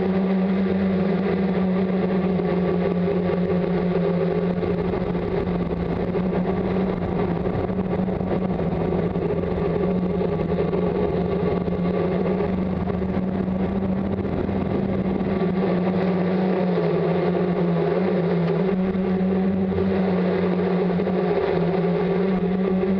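Multirotor's electric motors and propellers humming steadily, heard close up from the camera mounted on the craft, with small dips in pitch near the end as the motors change speed.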